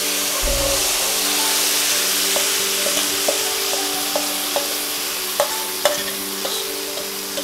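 Raw rui (rohu) fish pieces in mustard-poppy paste sizzling in hot mustard oil in an aluminium kadai, a steady hiss with a few sharp clicks scattered through it.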